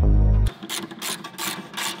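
Hand ratchet wrench clicking in repeated quick strokes, a few a second, as a bolt on the car's underbody is turned. Background music cuts off about half a second in.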